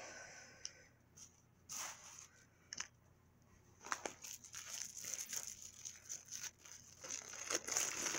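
Plastic wrapping of L.O.L. Surprise Pets toy packets being torn open and crinkled by hand: a few short rips at first, then continuous crinkling over the last four seconds.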